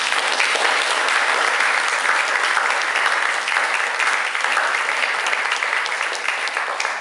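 Audience applauding, many people clapping in a steady, dense patter.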